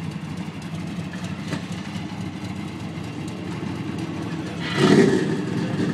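Twin-turbocharged built 421 V8 in a GMC Sonoma pickup idling steadily, with a short loud burst about five seconds in.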